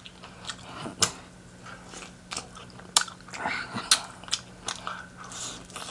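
Close-up biting and chewing of fried chicken, with sharp crisp crunches about once a second.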